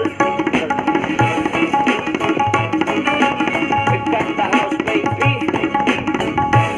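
Tabla played in a fast, dense pattern over instrumental backing music. Crisp ringing strokes come from the small right-hand dayan, and deep bass booms from the metal bayan fall about once a second.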